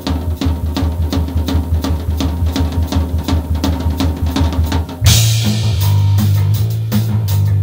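Background rock music: a fast, steady drum beat, then about five seconds in the full band comes in with a cymbal crash and a deep, sustained bass.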